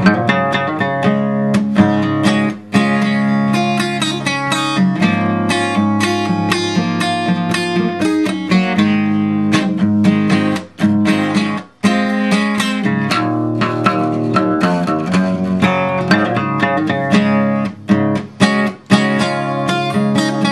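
Acoustic guitar with a capo, strummed in chords at a steady rhythm, with a few brief breaks between strums.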